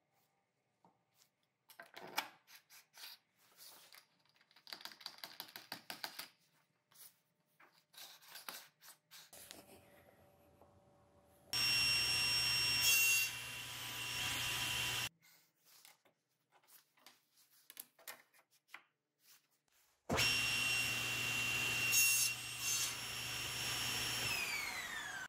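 Light knocks and clicks of plywood pieces being handled on a crosscut sled. Then a table saw runs with a high steady whine and cuts through wood on the sled, in two loud passes. Near the end the blade's whine falls in pitch as it spins down.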